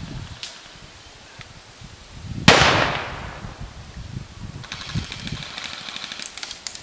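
A single loud bang about two and a half seconds in, with a hissing tail that dies away over about a second. Faint rapid ticking follows in the last two seconds.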